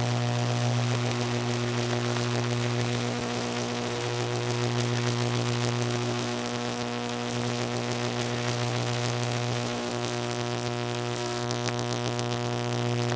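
Steady electrical buzz: a strong low hum with a ladder of evenly spaced overtones, under a crackling hiss. The level dips slightly a few times but the buzz never stops.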